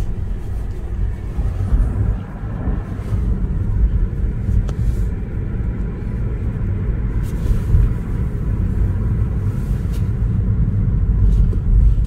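Steady low rumble of a car driving on the road: tyre and road noise.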